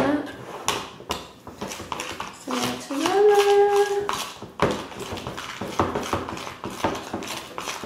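A spoon clinking and scraping against a ceramic bowl while stirring a pepper-paste sauce, starting with a sharp knock. In the middle comes a short hummed vocal sound that rises and then holds.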